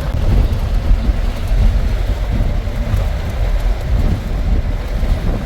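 Steady rumble and road noise of a moving minibus, with wind buffeting the microphone. It cuts out abruptly at the very end.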